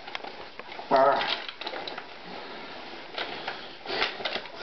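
Clothing rustling and small knocks and clicks of handling as an airsoft gun is worked out from under a jacket, with the rustle strongest near the end.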